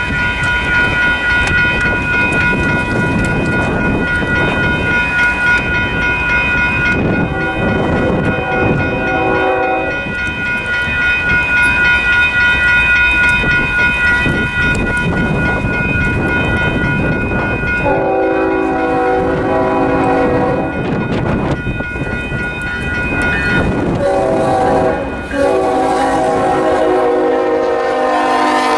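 Union Pacific freight locomotive's multi-tone air horn sounding for a grade crossing: a long blast about seven seconds in, then long, short and long blasts from about eighteen seconds on as the train reaches the crossing. A railroad crossing bell rings steadily underneath and stops about twenty-three seconds in.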